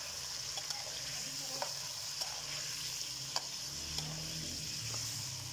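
Chicken pieces frying in hot oil, sizzling steadily, with a few short clicks of a spoon against the pot as they are stirred and browned.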